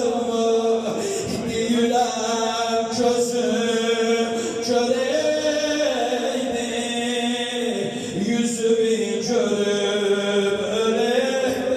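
A man's solo voice chanting a Persian religious lament into a microphone, holding long notes that slide and waver between pitches, amplified through the hall's sound system.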